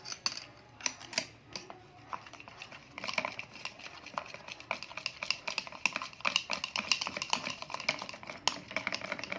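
Wood glue and blue colouring being mixed by hand for slime: a run of quick clicks and scrapes, scattered at first and dense and steady from about three seconds in.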